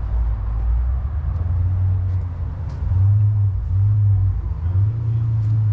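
A car engine idling with a low, steady rumble that gets a little louder about three seconds in.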